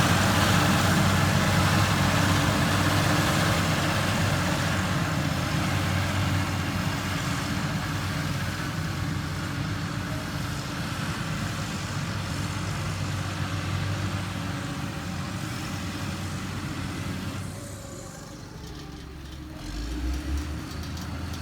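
Heavy diesel engine of a construction machine running steadily, its sound slowly fading for most of the stretch, then dipping briefly before a low hum rises again near the end.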